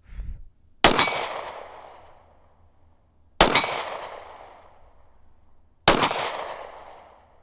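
Three single handgun shots, about two and a half seconds apart, each followed by a long fading echo.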